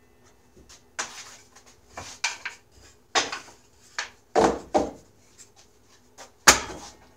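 Short cut pine blocks knocking and clacking against each other and the saw table as they are gathered and stacked by hand: a series of irregular wooden knocks, the loudest about six and a half seconds in.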